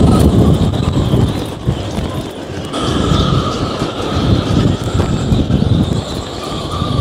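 Storm-force wind gusting hard against the microphone on an open yacht deck, a heavy rumbling roar that swells and eases with each gust, with a faint high whistle that comes and goes.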